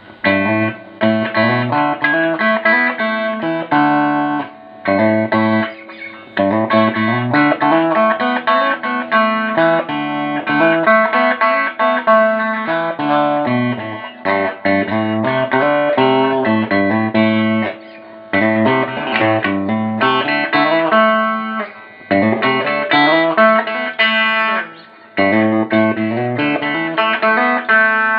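Electric guitar, a 1973 Gibson SG Custom, played through a 1979 Fender Twin Reverb amplifier: a play test of the restored amp. Chords and runs of notes in phrases, broken by several short pauses.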